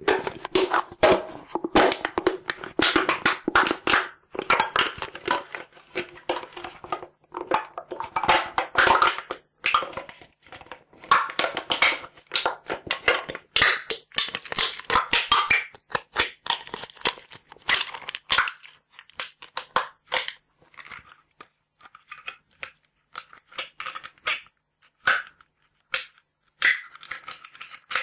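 A metal can being crumpled and crushed by hand, recorded binaurally: dense runs of crinkling, crackling metal, busiest over the first twenty seconds and thinning to scattered crackles near the end.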